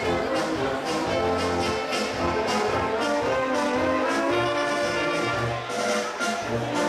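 Small wind band playing live: trumpets, trombones and clarinets carry the tune over pulsing tuba bass notes, with a drum kit keeping a steady beat of about two strokes a second.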